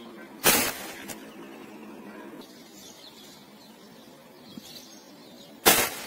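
Two hunting-rifle shots, about five seconds apart, each a short sharp report with a brief tail.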